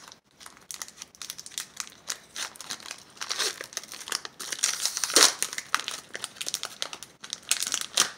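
Foil wrapper of a Pokémon card booster pack crinkling and tearing as it is pulled open by hand, with the loudest crackle about five seconds in.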